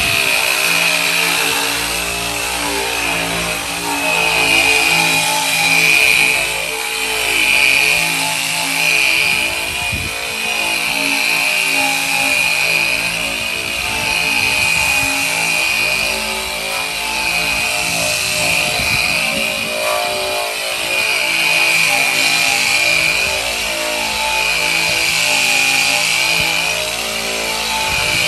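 Handheld power sander running against the bare steel of a welded quarter panel, with a steady high whine that swells and eases as it is pressed and moved over the metal. This is sanding down the repaired panel to prepare it for bodywork.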